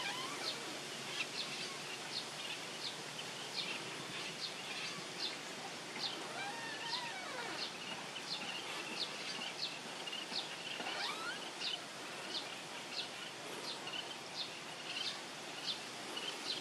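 Open-field ambience with a steady series of short, high chirps repeating a little under two times a second. A couple of fainter gliding bird calls come in around the middle.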